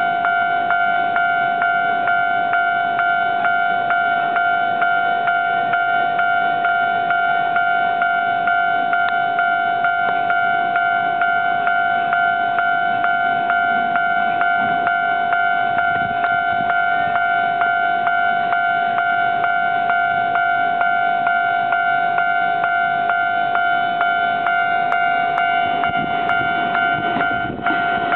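Japanese level-crossing warning bell ringing continuously, a steady electronic ding repeated at an even rapid pace while the gates are down. Near the end a train's rumble starts to rise under it.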